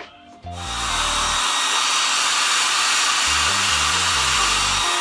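Handheld hair dryer switched on about half a second in and then running steadily at full blast. Background music's bass line continues faintly underneath.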